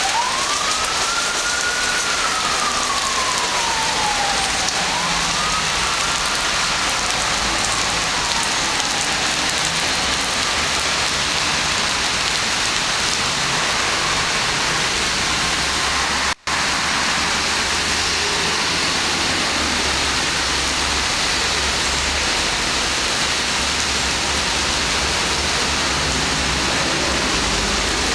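Heavy typhoon rain falls steadily on pavement and street as a dense, even hiss. A siren wails up and down twice in the first several seconds and fades out. The sound cuts out briefly about sixteen seconds in, and a low traffic rumble runs under the rain after that.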